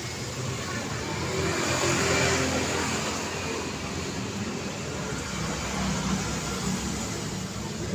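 Busy city street traffic: steady road noise and engines of passing vehicles, with a louder vehicle passing about two seconds in.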